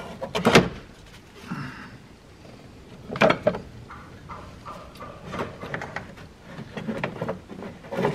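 Clunks and scraping of a viscous cooling fan and its fan shroud being lifted out of an engine bay and set down, with two loud knocks, about half a second in and about three seconds in, and lighter rattling of the shroud after.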